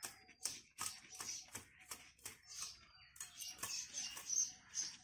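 Thin bamboo twigs being cut into short pieces with a sickle: a string of crisp clicks and snaps, about two or three cuts a second.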